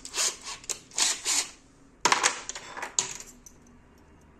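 Metal drill bits clinking and rattling as they are handled and swapped in a cordless drill's chuck, in two bursts of quick clicks.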